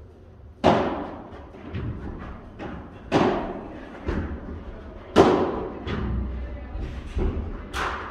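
Padel rally: the ball is struck by rackets and bounces off the court and glass walls. About six sharp pops a second or so apart, each echoing in the hall, the loudest about five seconds in.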